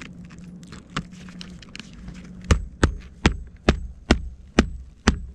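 A wooden-handled hammer driving a nail on an asphalt-shingle roof. There is one light tap about a second in, then from about halfway through a steady run of about seven sharp strikes, two to three a second.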